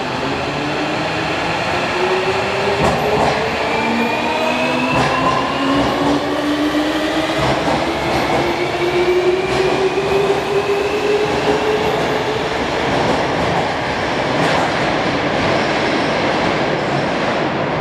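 JR Kyushu 305 series electric train accelerating out of the station, its Toshiba VVVF inverter and permanent-magnet synchronous motors giving several whines that climb steadily in pitch as it gathers speed. Wheel and rail noise run under the whine, with a few clacks over rail joints. The sound eases off near the end as the last car goes into the tunnel.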